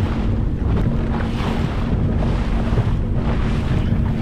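Wind buffeting the microphone and choppy sea water washing against a jetski, with a steady low hum underneath. The noise swells and fades about once a second.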